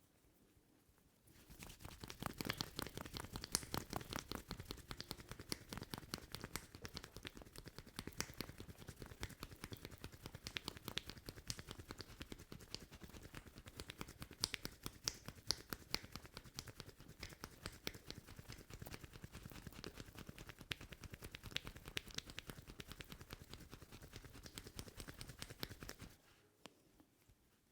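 A barber's hands striking a person's head rapidly and continuously in a head massage, a dense run of quick pats that starts about a second in and stops shortly before the end.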